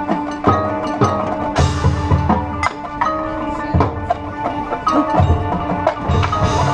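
High school marching band and front ensemble playing: struck mallet-percussion notes ring over held low notes, with a cymbal wash about a second and a half in and another near the end.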